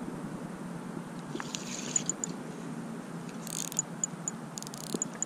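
Spinning fishing reel being cranked as a hooked line is brought in: faint scattered clicks and short high ticks over a low steady background.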